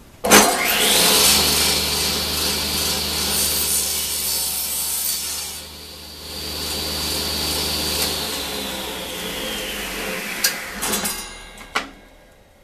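Table saw switched on, its whine rising as it spins up, then cutting through a wooden board. It is switched off and the whine falls slowly as the blade coasts down, with a few knocks of wood on the table near the end.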